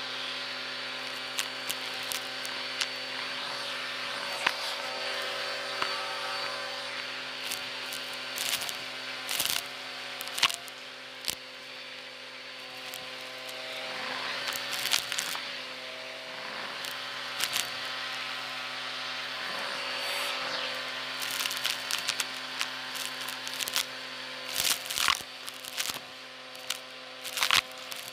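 Vacuum cleaner running steadily, its motor a hum with several held tones, as the nozzle sucks dry soil, grit and small debris off a textured mat. The bits rattle and crackle up the wand in sharp clicks, coming thickest near the end.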